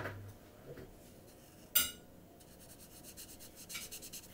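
Felt-tip marker nib scratching over paper in quick, short back-and-forth colouring strokes. There is a soft knock at the start and a sharp click about two seconds in.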